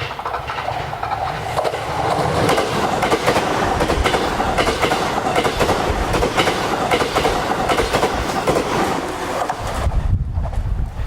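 A train passing close by, its wheels clicking rapidly over the rail joints. The sound builds over the first couple of seconds, holds, and thins out about ten seconds in.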